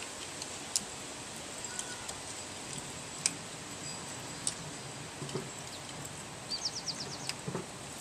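A few sharp plastic clicks as the electrical connectors are pushed onto the ignition coils of a Toyota 1.5-litre engine. A bird gives a quick run of high rising chirps about six and a half seconds in.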